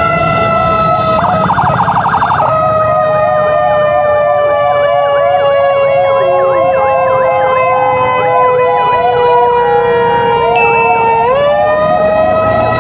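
Emergency sirens from the ambulance and its escort sounding together. One long wail slowly falls in pitch and jumps back up about eleven seconds in, over a fast repeating yelp, with a brief rapid stuttering burst about a second in.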